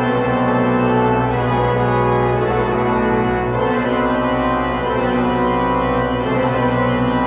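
Pipe-organ-style church organ playing a sustained low drone under busy, rapidly repeating notes in the upper voices.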